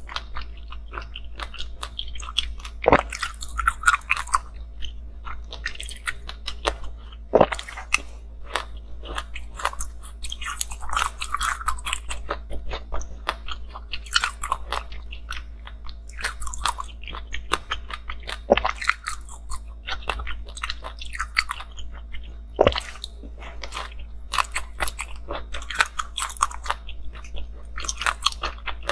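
Small frozen ice pieces being bitten and chewed close to the microphone: a continuous, irregular run of sharp crunches and cracks, with a few louder single snaps.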